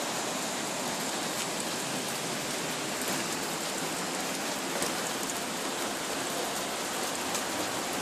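Heavy rain mixed with hail falling steadily, with scattered sharp ticks through the constant hiss.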